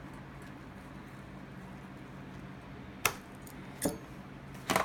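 Three sharp metallic clicks and knocks in the last two seconds, the last a short rattle and the loudest, as tools and the motorcycle carburetor bank are handled in a foil pan. A steady low hum runs underneath.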